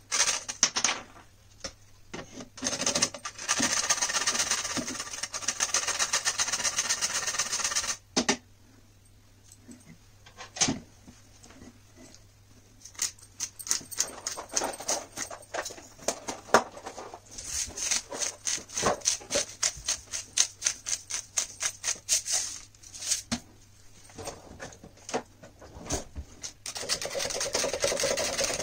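Whole nutmeg grated on a metal box grater, a dense scraping rasp in runs over the first several seconds, then a few knocks. Then a spice grinder twisted over the jug, a long run of quick clicking strokes, and near the end a hand whisk starting to beat the milk mixture in a plastic jug, a steady swishing scrape.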